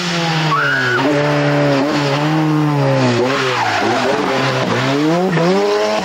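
Ford Sierra Cosworth rally car's turbocharged four-cylinder engine running hard at racing pace. Its pitch falls and climbs again several times as the driver lifts off and changes gear while the car pulls away.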